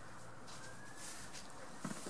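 Faint rustling of straw bedding as goats shift their hooves, with a single soft knock just before the end, over a steady low hum.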